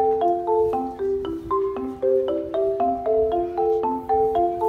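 Background music: a light mallet-percussion melody, notes in repeating broken chords at about four a second.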